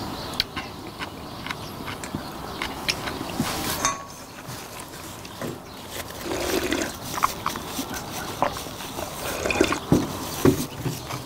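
Slurping and gulping of cold noodle broth drunk straight from stainless steel bowls, with scattered light clicks and knocks of chopsticks and bowls.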